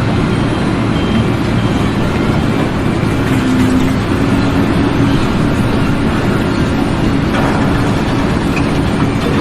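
Loud, steady rumble of a heavy engine or machine running.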